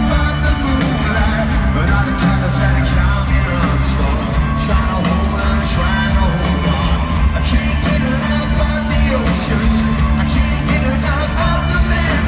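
Rock band playing live through a concert PA, heard from within the crowd: heavy bass and a driving drum beat of about four hits a second, with singing over the top.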